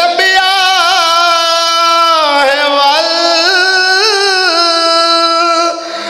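A man singing one long, drawn-out devotional phrase into a microphone, holding wavering notes. The phrase breaks off shortly before the end.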